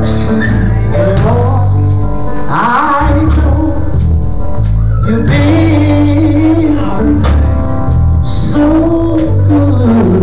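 Gospel group singing through microphones and church loudspeakers, a woman leading, over instrumental backing with sustained low bass notes.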